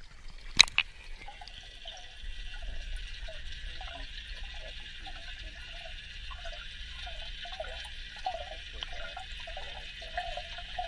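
A brief splash as a camera plunges into pond water, then muffled underwater noise: a steady hiss and low rumble with faint warbling sounds.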